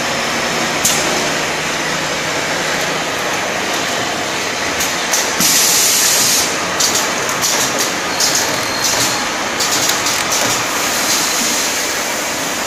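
Automatic bottle filling and capping line running: the conveyor and machinery make a steady mechanical din, broken by short bursts of hiss, the longest about five seconds in.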